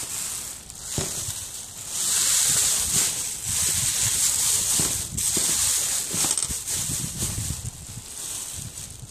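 Irregular rustling of crinkly plastic sheeting being handled, swelling and fading, with a few light knocks.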